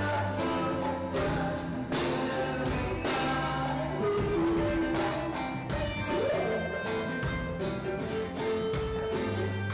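Live band music with a steady beat: a man singing over a drum kit, hand drum and guitar.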